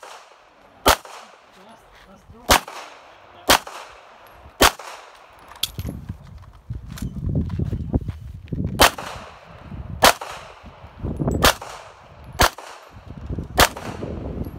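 Handgun shots fired at steel plate targets: about ten shots, roughly a second apart, with a pause of about four seconds near the middle. Each hit brings a metallic clang from the steel.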